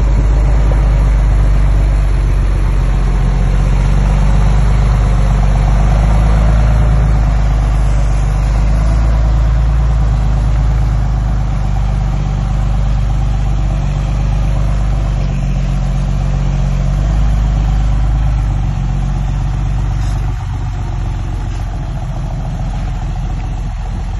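Diesel engine of heavy construction machinery running steadily with a deep rumble, dropping a little in level about twenty seconds in.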